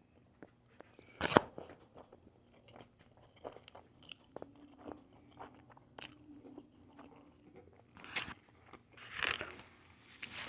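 Close-miked eating sounds: biting and chewing with small crunches and mouth clicks. There is a louder sharp crunch about a second in and another near the end.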